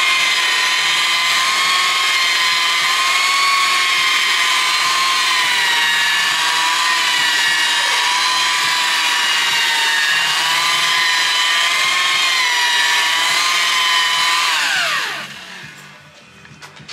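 Rotary machine polisher running with a steady high whine, its pad buffing the plastic lens of a headlight with cutting compound. About fifteen seconds in it is switched off and the whine falls away as the motor spins down, followed by a light click or two.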